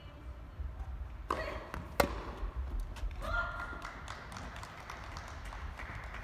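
Tennis ball struck by a racket during a rally: a bounce-like knock, then a sharp loud pop about two seconds in, followed by scattered lighter taps.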